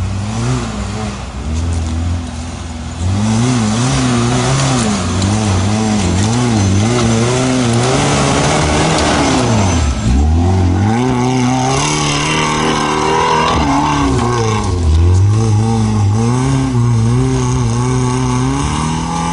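Four-wheel-drive off-road vehicle's engine revving hard as it climbs a steep dirt slope, its pitch rising and falling again and again. About halfway through the engine speed drops sharply and then picks up again.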